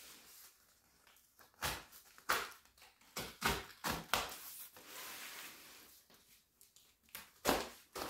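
A cardboard shipping box being opened and handled: rustling and scraping of cardboard and packing, with a handful of sharp knocks and bumps scattered through.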